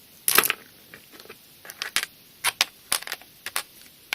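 Small Pokémon gym badges and their packaging being handled: a short clattering rattle, then several light, separate clicks and taps.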